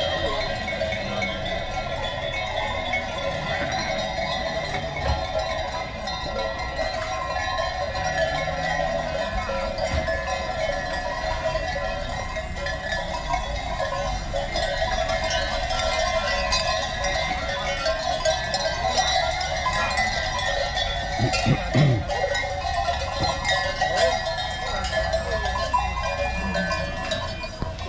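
Many goat bells clanging and ringing together without pause as a herd of goats is driven into a pen.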